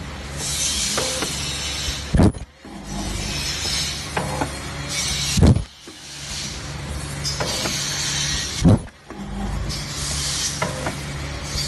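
Ultrasonic sealing packing machine running steadily, with a loud stroke about every three seconds as it goes through its pouch-making cycle.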